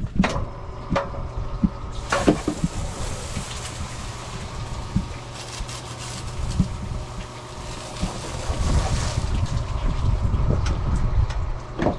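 Electric boat lift running with a steady low hum as it raises the boat, with a couple of knocks in the first few seconds.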